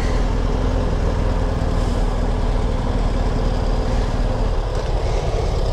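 BMW R 1250 GS boxer-twin motorcycle engine running steadily at low speed in slow traffic, with a constant low rumble and the noise of surrounding road traffic.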